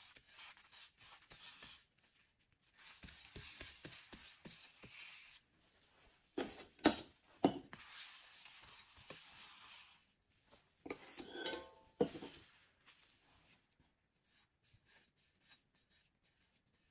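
Metal spatula scraping and smoothing soft frosting on a cake, in soft rasping strokes, with a few sharp clinks of metal about halfway through.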